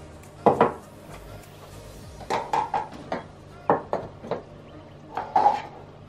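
A metal teaspoon clinking and tapping against a small cup and a plastic tea sieve while sugar is spooned out, in four short groups of quick clinks with a brief ring.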